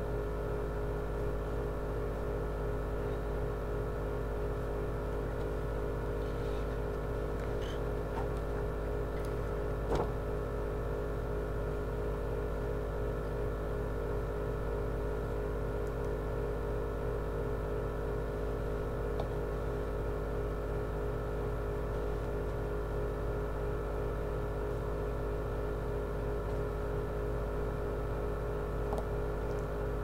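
A steady, unchanging hum made of many tones, with one sharp click about ten seconds in.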